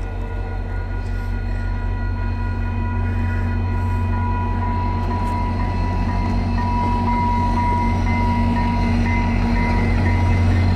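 VIA Rail F40PH-2 diesel locomotive and its passenger cars passing close by: a steady deep engine rumble with the run of wheels on rails, slowly getting louder toward the end.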